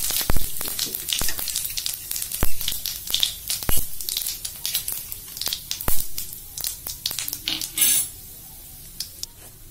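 Cumin seeds and cardamom pods sizzling in hot oil in a karahi, with many sharp crackles and pops as the whole spices temper. The popping dies down near the end.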